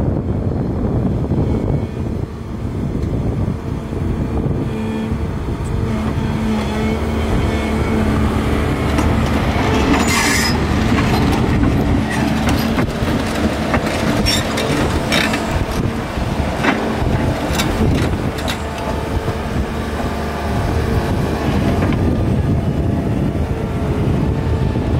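2015 Volvo EC300EL crawler excavator running, its diesel engine and hydraulics working steadily. About ten seconds in, a run of sharp metal clanks and squeals from the steel tracks lasts for several seconds.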